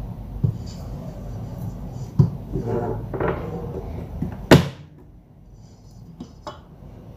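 Stand mixer motor running with its wire whisk in a bowl of whipping cream, while a tin can of sweetened condensed milk knocks against the steel bowl several times. A loud sharp knock about halfway through, after which the motor hum drops away.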